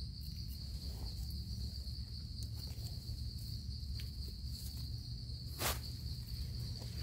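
Steady high-pitched drone of insects calling in the forest, over a low rumble. There are a few faint clicks, and one sharper click about five and a half seconds in, from a small knife trimming mushrooms.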